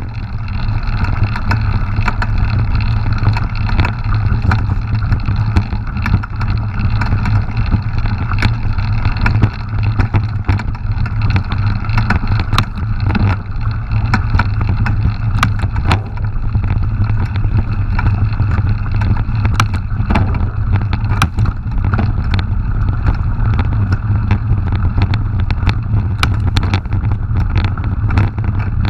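Mountain bike rolling fast over a gravel track, heard through an action camera's microphone: a steady low rumble of wind and tyre noise, with frequent sharp clicks and rattles from gravel and the bike.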